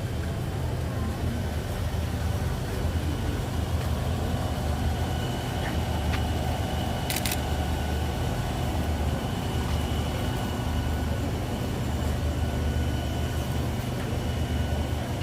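Steady low rumble of a vehicle engine running, with a faint steady high tone over it and one brief click about seven seconds in.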